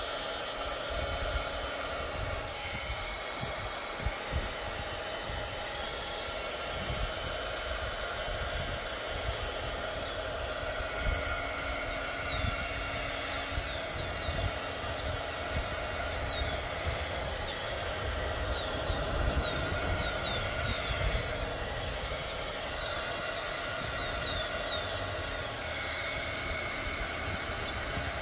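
Small handheld craft heat gun running steadily, a fan hiss with a steady motor whine, as it is played over fabric flower petals to melt them.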